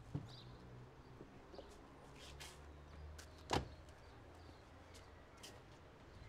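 A car's rear door shut once, a single solid thunk about halfway through, over a faint low street rumble with a few small clicks.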